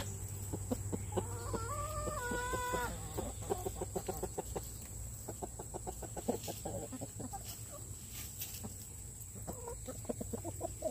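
Flock of chickens clucking as they feed. A drawn-out call lasts about two seconds from a second in, followed by rapid runs of short clucks.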